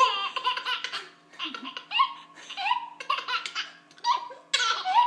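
Five-month-old baby girl laughing in about five short, high-pitched bursts with brief pauses between them.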